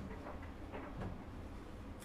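Faint, irregular clicks and light taps, about four in two seconds, over a low steady hum.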